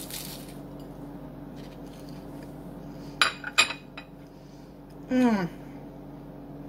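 A red glass plate set down on a granite countertop, clinking twice in quick succession about three seconds in. A short falling hum from a voice follows about two seconds later.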